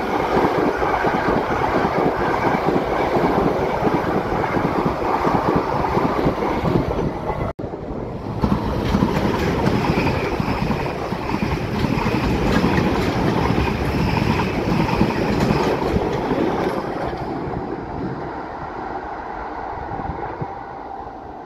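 Electric passenger train running past on the tracks below, a dense rumble of wheels on rails that fades over the last few seconds as it draws away. The sound cuts out for a split second about a third of the way in.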